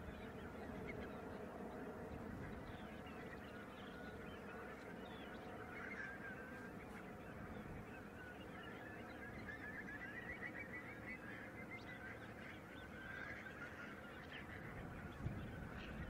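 A large flock of shorebirds calling: many short, overlapping, high calls, thickest in the middle, over a steady low rush of wind and water. There is a brief thump near the end.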